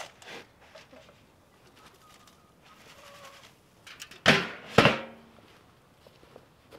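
Two loud scraping swishes about half a second apart, about four seconds in: a plastic scoop digging into feed in a galvanized steel trash can. A light clank right at the start comes from the can's metal lid.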